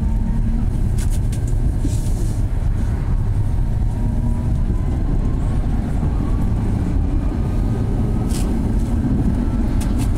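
Tatra T3 two-car tram set running on the track, heard from inside the car: a steady low rumble of motors and wheels, with a faint whine slowly rising in pitch. A few sharp clicks come about a second in and again near the end.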